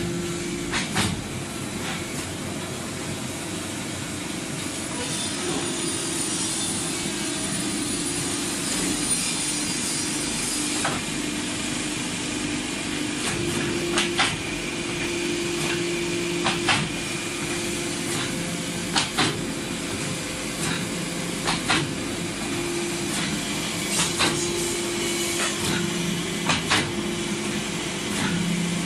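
Woodworking machinery running steadily, with a low hum that swells and fades and sharp knocks every couple of seconds as the boards are handled and cut. A high whine sounds for several seconds in the first half.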